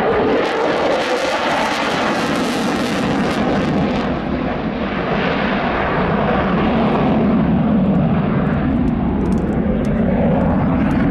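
Belgian F-16 Fighting Falcon's jet engine, loud and continuous as the fighter flies overhead, with afterburner lit. A hissing top end fades about four seconds in, leaving a deeper rumble.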